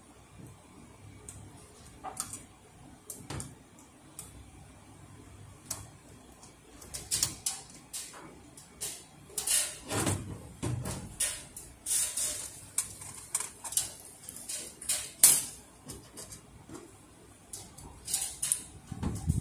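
Hands working a Ricoh 5001/5002 photocopier's fuser cleaning web unit: irregular clicks, taps and short scrapes of the sheet-metal frame and web roll. The handling is sparse at first and gets busier after a few seconds.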